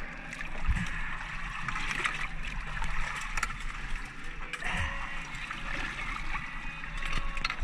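Seawater sloshing and splashing against a boat's hull and stern ladder as a diver climbs out of the water, with two dull thumps.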